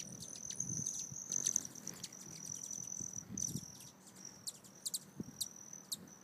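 Hummingbirds around a feeder: a high, steady, whistling trill that breaks off and resumes several times, over many quick, sharp chip notes.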